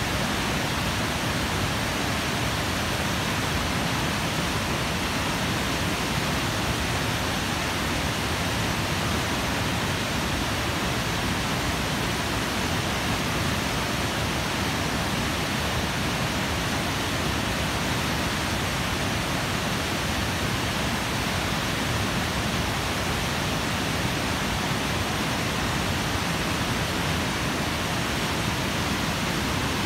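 Water pouring over a concrete dam spillway: a steady, even rush of falling water.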